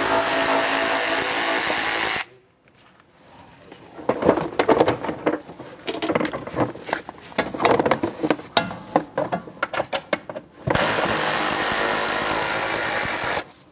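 A power tool runs in two steady spells of about two and a half seconds each, one at the start and one near the end. In between comes a run of short plastic clicks and rattles as the car's worn plastic fender liner is pulled loose from the wheel well.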